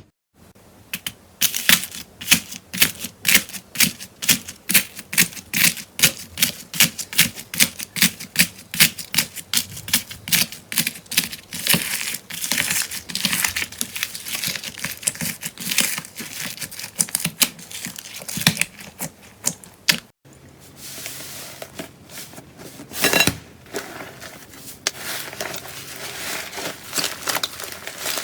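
Slime being squeezed and poked, giving off crisp popping clicks about two or three times a second. About two-thirds of the way in it changes to a softer, denser crackle with one louder pop.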